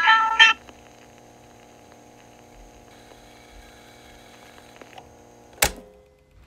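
Last plucked notes of an Amami sanshin closing the shima-uta, dying away within about half a second, then the faint steady hum of the recording. Near the end, one sharp click with a brief ring.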